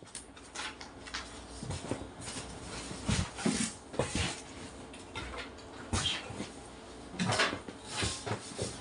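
Handling noise from a heavy 15-inch loudspeaker driver being lifted, turned over and set down on cardboard boxes, with its lead wires tugged: irregular knocks, scrapes and rustles, the loudest a few seconds in and again near the end.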